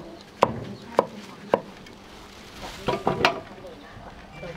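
Knife chopping through a firm giant mushroom onto a wooden chopping board: sharp knocks about every half second, three at first, then a quick cluster of knocks around three seconds in.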